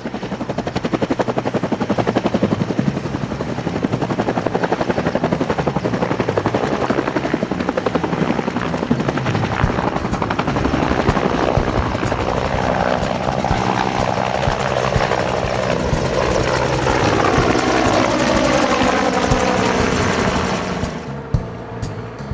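Bell 206-type air-ambulance helicopter lifting off and flying close by: a fast rotor beat over the turbine's whine, its pitch sliding down in the second half as it passes and draws away. About a second before the end it gives way to a quieter, more distant helicopter.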